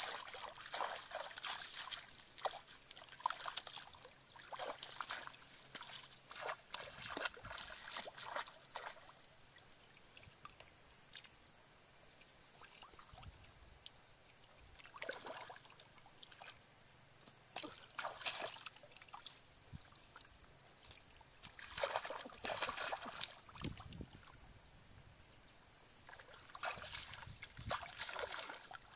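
Shallow muddy water splashing and sloshing as bare hands grope through it and bare feet wade in it, in irregular bursts with quieter spells between.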